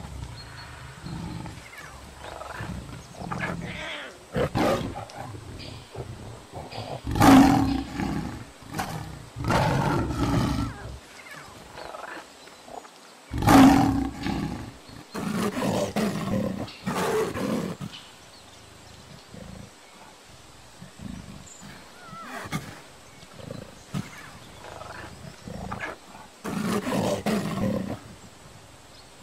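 Big cats roaring: a series of separate roars and calls, the two loudest about seven and fourteen seconds in, with quieter ones between.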